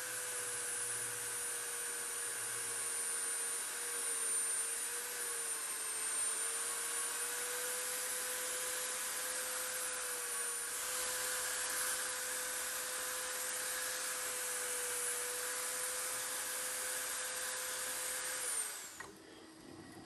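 Magnetic drill press running under load, its bit cutting into thick steel plate: a steady motor whine that wavers slightly as feed pressure changes. Near the end the motor is switched off and winds down.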